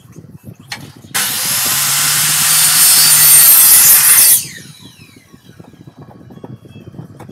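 Homemade sanding machine grinding a workpiece for about three seconds: a loud hiss of abrasive against the material over a low motor hum, growing slightly louder, then cutting off, followed by a faint falling whine as the machine winds down.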